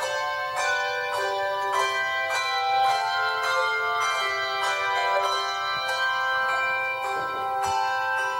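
Handbell choir playing a piece: brass handbells struck in chords and melody, a new stroke every half second or so, the notes ringing on and overlapping.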